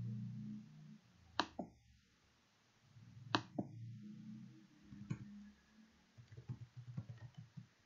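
Two sharp computer mouse clicks about two seconds apart, each a press followed by a softer release. Near the end comes a quick run of light keyboard keystrokes as an address is typed.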